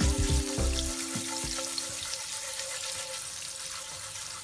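Whole spices sizzling in hot oil and butter in a frying pan, with a few knocks from the pan being tossed in the first second; the sizzle then settles into a steady, slowly fading hiss.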